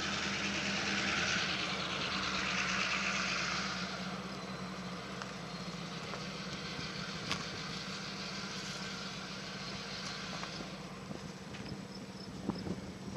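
Vehicle noise: a broad hiss that fades after about four seconds, over a steady low hum, with a few faint clicks.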